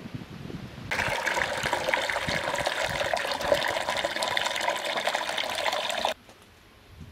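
Water pouring in a steady stream into a stainless-steel chimney water heater (samovar-style, with a central flue), splashing onto the water already inside. It starts suddenly about a second in and cuts off abruptly about six seconds in.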